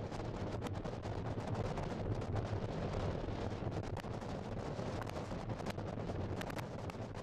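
Jet engines of a twin-engine widebody airliner at takeoff thrust as it climbs out, a steady rumbling roar full of rapid irregular crackling.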